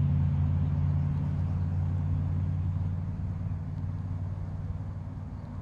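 A low, steady motor hum that slowly fades.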